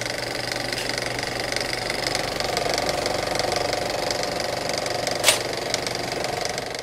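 Film projector sound effect: a steady, rapid mechanical clatter with one sharp click about five seconds in.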